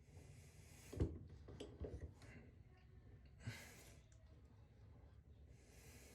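A person breathing out audibly in slow puffs, with a few light knocks and clicks from hand work, the loudest knock about a second in.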